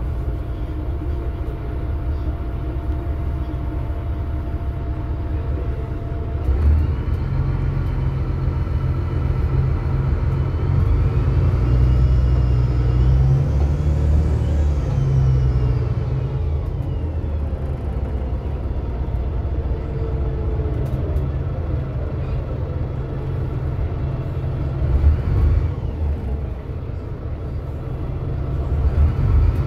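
VDL DB250LF double-decker bus heard from the upper deck, its engine rumbling as it pulls away and accelerates. A whine climbs in pitch for several seconds and then falls away, and a second pull-away begins near the end.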